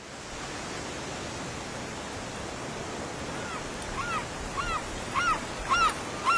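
Steady rush of ocean surf and wind. From about halfway in, a bird calls over it again and again: short rising-and-falling notes a little under two a second, getting louder.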